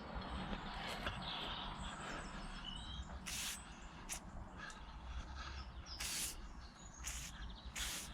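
A can of WD-40 spray lubricant hissing in four short squirts, the first about three seconds in and three more close together near the end, with small birds chirping in the background.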